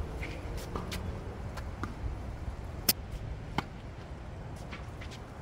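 Tennis ball hit and bouncing on a hard court during a rally: a few sharp pops, the loudest about three seconds in with another shortly after, over a low steady rumble.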